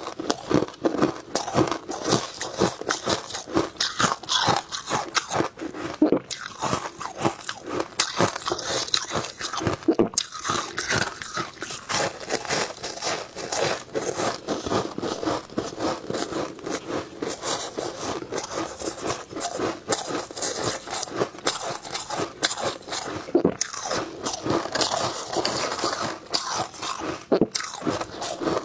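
Shaved ice crunching as it is bitten and chewed close to a clip-on microphone, a dense run of crunches with no break.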